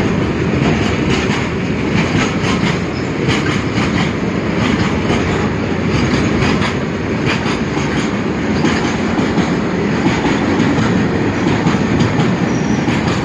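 Freight train passing at speed: a steady rumble of wheels on rail with irregular clattering over the track.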